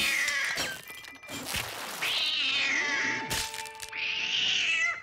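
Cartoon cat yowling in three long, wavering, high-pitched cries, with short cracking and crashing sound effects of breaking china and glass in the gaps between them.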